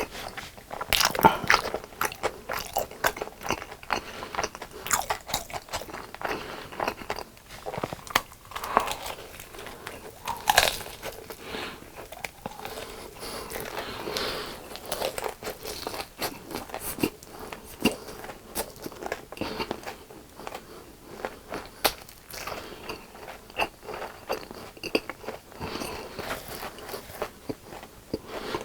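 Close-up chewing and biting into crispy fried chicken, with many irregular sharp crunches throughout.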